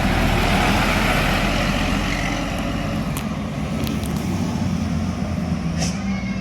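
Road traffic passing close by: engine and tyre noise swells in the first second or so and then eases, over a steady low engine hum.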